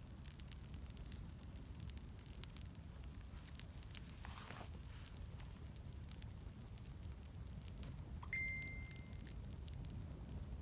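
Campfire burning with a steady low rumble and scattered sharp crackles and pops from the burning wood. About eight seconds in, a brief steady high tone sounds for about a second.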